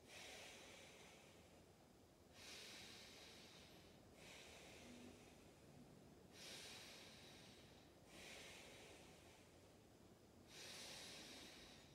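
A person breathing slowly and deeply, faint: four stronger drawn breaths of about two seconds each, with softer ones between.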